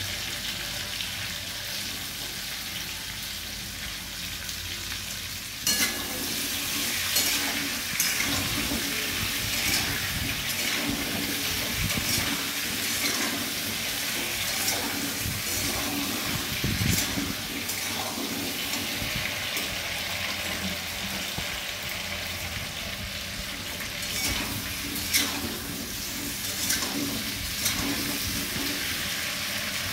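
Potato pieces and chopped tomato frying in oil in a metal kadai: a steady sizzle, with a metal spatula scraping and clinking against the pan as they are stirred. The sizzle grows louder about six seconds in, after a sharp clink.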